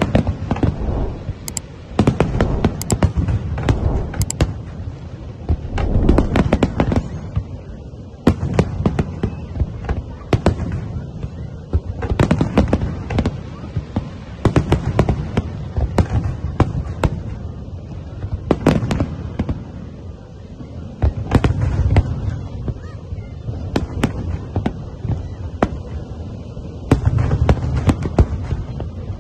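Fireworks display: aerial shells bursting in many sharp bangs, one after another at irregular intervals, over a continuous low rumble.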